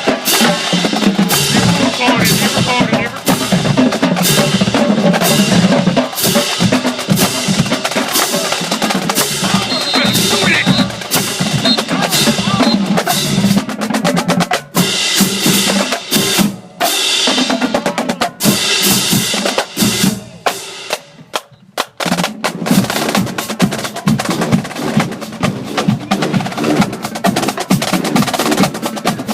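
Marching band drumline playing: snare drums with rolls over bass drums, driving fast strikes that thin out and drop off for a few seconds past the middle before picking up again.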